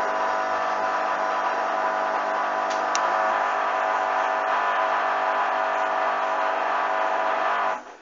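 Hoover washing machine's drum motor whining steadily as the drum turns the wet load slowly in suds, with two short high ticks about three seconds in. The load is badly unbalanced. The sound cuts off abruptly just before the end.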